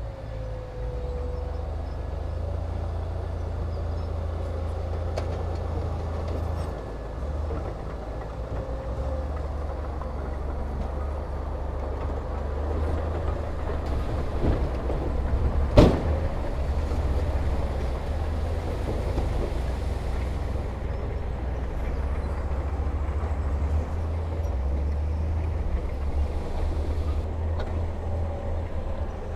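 Diesel engine of a Komatsu D31P bulldozer running steadily, a low rumble with a wavering engine note. A single sharp clank about halfway through.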